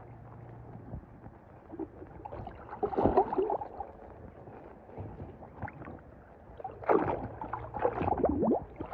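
Pool water splashing and sloshing as a hand moves plastic toy cars through it and lifts one out dripping. The splashes come in two louder flurries, about three seconds in and again near the end.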